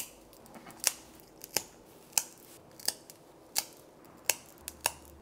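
Plier-style pet nail clippers snipping through a cat's long claws: about eight sharp snips, roughly one every three-quarters of a second.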